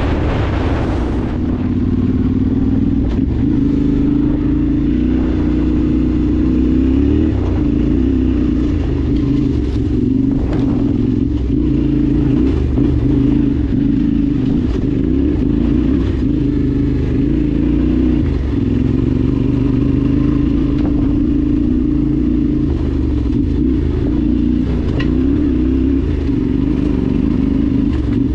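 Yamaha Ténéré 700 (T7) motorcycle's parallel-twin engine running at a steady cruise, its pitch wavering slightly with small throttle changes.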